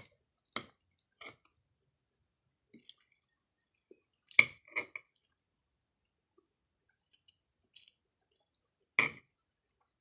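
Eating sausage and rice with a metal fork and spoon: a handful of short, sharp clinks and mouth clicks of the utensils against the plate and teeth, with faint chewing between. There is a small cluster of clicks near the middle, and the loudest clink comes about nine seconds in.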